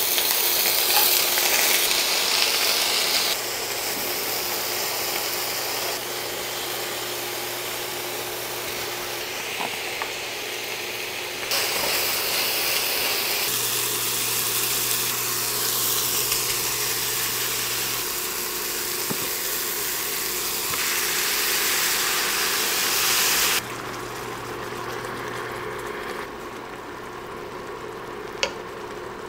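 Pork cubes frying and sizzling in oil in an enameled cast-iron skillet, a steady hiss that jumps in level at several points. Later the sauced pan sizzles on, and there are a couple of sharp clicks near the end.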